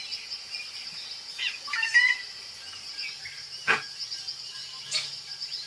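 Forest ambience: a steady high insect drone, with a few short bird chirps a second or two in and two short sharp sounds in the second half.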